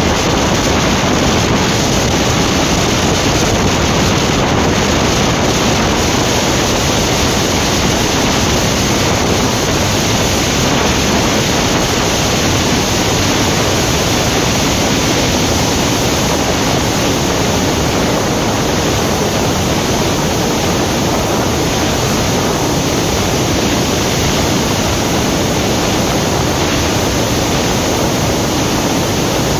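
Steady rush of wind over the microphone of a motorcycle riding at highway speed, about 85 to 110 km/h in sixth gear, loud enough to bury the engine note.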